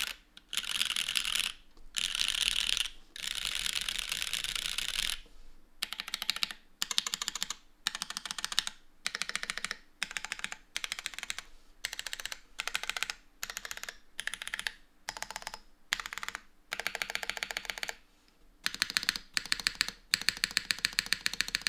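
Typing on an Oumini 60 mechanical keyboard with linear Cherry RGB Black switches, GMK keycaps, a full aluminium plate, top mounting and no dampening foam. Dense runs of keystrokes come first, then short bursts of fast clicking separated by brief pauses, and near the end a run of louder, evenly spaced strokes.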